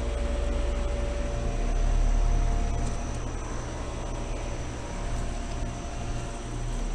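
Bryant Evolution two-stage heat pumps running in cooling mode: a steady condenser-fan rush over a compressor hum with a few steady tones. The low hum swells briefly about two seconds in, then settles.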